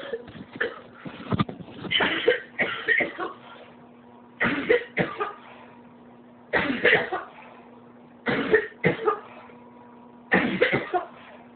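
A woman coughing over and over: a run of coughs at first, then short fits of two or three coughs about every two seconds. It is a persistent cough that has gone on most of the day.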